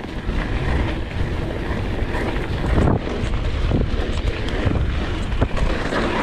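Wind buffeting the microphone over the rumble and rattle of a Polygon Xquareone downhill mountain bike riding fast down a dirt singletrack. Its tyres run over the dirt with a few sharp knocks from bumps, about three seconds in and again later.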